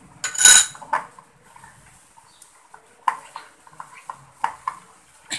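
A steel spoon clinking against glass bowls: one loud clink about half a second in, then from about three seconds a run of short, light clinks and scrapes as the spoon stirs thick icing-sugar and water paste in a glass bowl.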